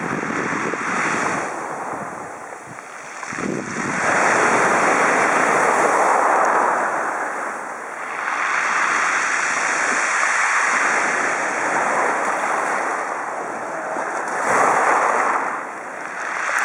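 Small waves breaking and washing up over a pebble beach, the surf swelling in about three surges, the loudest a few seconds in.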